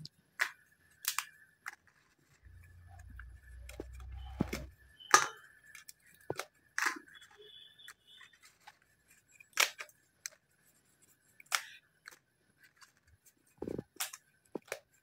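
Crisp, tawa-roasted masala papad snapped by hand into pieces: a dozen or so sharp, separate cracks at irregular intervals.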